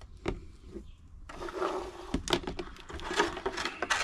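Clear rigid plastic packaging being handled, first a few separate clicks, then from about a second in a continuous crinkling and crackling with many small clicks.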